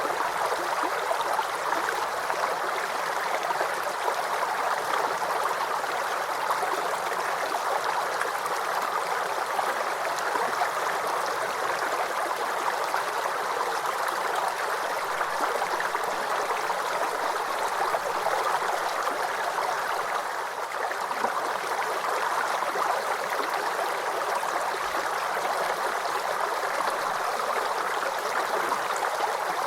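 Small creek babbling and gurgling over stones, a steady flow of water.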